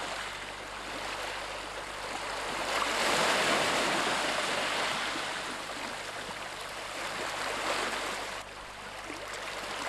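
Sea water washing and lapping as a steady rush that swells about three seconds in and dips briefly near the end.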